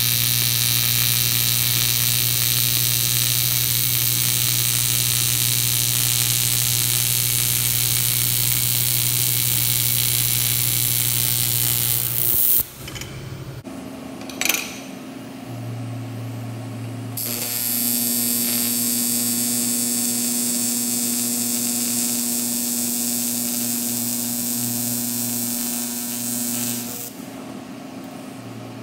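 Electric welding arc on aluminum giving a steady buzzing hiss: one long weld run of about twelve seconds, which stops, then a brief sharp snap, then a second run of about ten seconds that stops shortly before the end.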